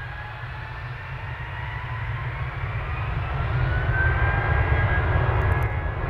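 Airbus A320's twin IAE V2500 turbofan engines spooling up for the takeoff roll. A whine rises in pitch over a low rumble, and the sound grows steadily louder.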